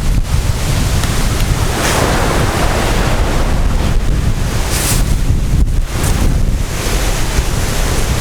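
Wind buffeting the microphone with a strong low rumble, over the wash of surf on the shore that swells and fades.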